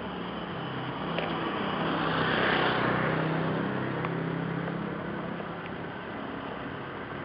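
A motor vehicle passing by on the road: engine and tyre noise swell to a peak about two and a half seconds in, then fade away.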